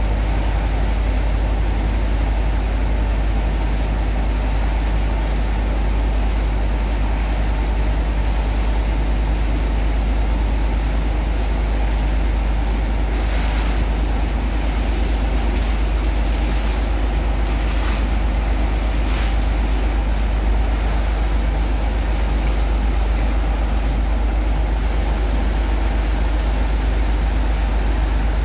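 Steady, loud drone of the heavy pump engine unloading a sand barge, with water and sand slurry rushing through hoses and pipe. A few short bursts of hiss come about halfway through.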